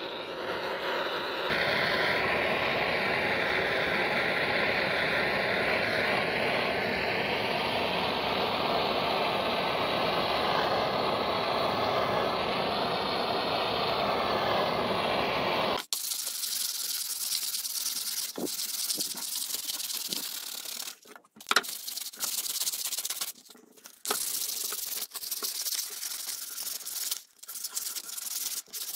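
Handheld butane gas torch burning with a steady hiss as its flame scorches a wooden handle. About halfway through this cuts off abruptly to a brush scrubbing the charred wood in quick scratchy strokes with short pauses.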